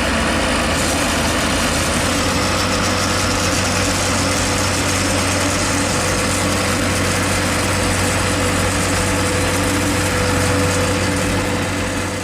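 Engine of a piece of heavy machinery running at a steady speed, a constant low drone with a steady higher tone above it.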